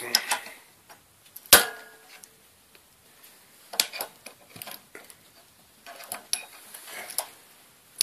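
Metal clanks and clicks of a three-jaw bearing puller and wrench being worked on the drum shaft of a Miele washing machine, as a stubborn bearing race is forced off the axle. One sharp clank rings on for nearly a second about a second and a half in, followed by scattered lighter clicks.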